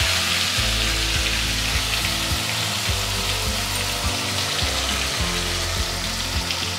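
Wet onion, garlic, ginger and chilli paste sizzling in hot mustard oil in an iron kadhai, the paste's moisture boiling off as it fries. The hiss is strongest at first and eases a little.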